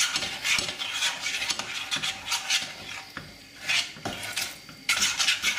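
A utensil stirring and scraping around a stainless steel saucepan of melting chocolate and butter, in quick, uneven strokes with brief pauses.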